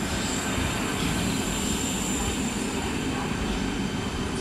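ČD class 471 CityElefant double-deck electric train rolling past at close range: a steady rumble of wheels and running gear with a thin, steady high-pitched whine over it.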